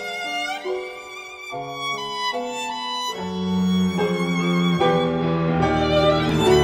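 Violin-led instrumental music played back through an Adam Audio A7V studio monitor and recorded in the room, with the monitor's room-correction EQ applied. The violin holds long notes with vibrato, and about three seconds in a low accompaniment comes in and the music grows fuller.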